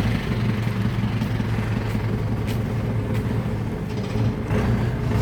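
A motor vehicle engine idling with a steady low hum.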